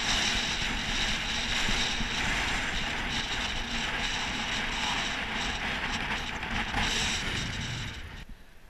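A road bike coasting: wind rushing over a helmet-mounted camera, with the rear freewheel hub ticking. The sound drops away sharply near the end.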